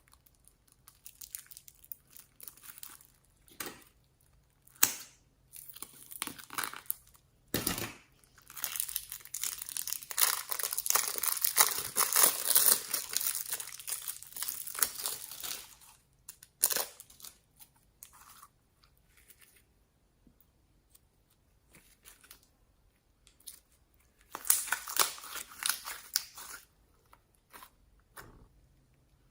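Homemade slime being squished, stretched and mixed by hand, giving irregular sticky crackling and tearing sounds in bursts, loudest about a third of the way in and again near the end, with a few sharp clicks.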